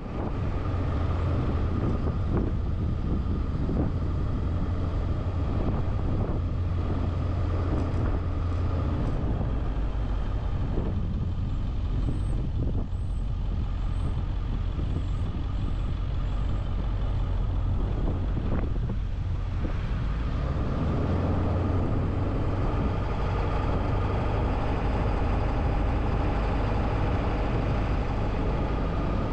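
A car driving: steady road and engine noise, mostly a low rumble.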